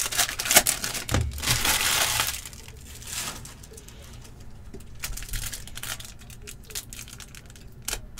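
Foil trading-card pack wrappers crinkling and tearing as hockey card packs are opened by hand. The loudest stretch of crinkling comes about one to two and a half seconds in; after that it is quieter handling, with a few sharp crackles near the end.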